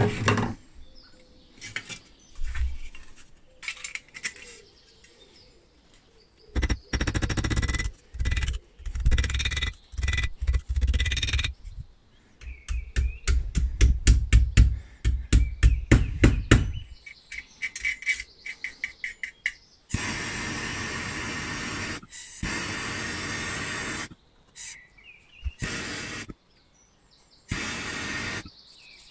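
Ball-peen hammer tapping thin sheet metal over a small bench anvil to fold it, in a run of quick metallic taps. About two-thirds of the way in comes a few seconds of steady rasping noise.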